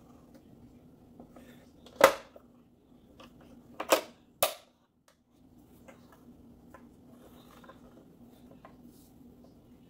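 Cuisinart sandwich maker's lid swung shut with a sharp clunk about two seconds in, then two quick clicks around four seconds as the front latch is snapped closed. A few faint taps follow over a faint steady hum.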